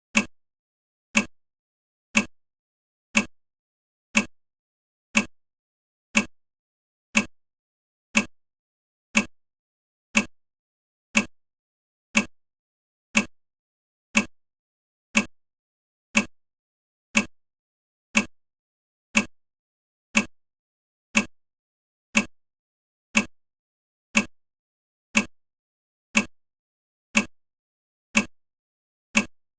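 Countdown timer ticking evenly once a second, each tick a short, sharp clock-like click.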